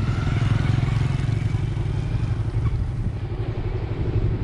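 Motorbike engine running at low speed, a steady, rapid, low pulsing.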